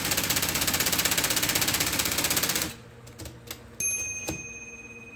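IBM Selectric II typewriter mechanism running with a fast, even clatter that cuts off about two and a half seconds in. A few light metal clicks follow, one leaving a high ringing tone that fades slowly.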